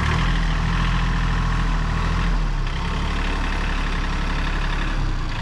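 A tractor engine revving up and running steadily under load, its note shifting a little about halfway through.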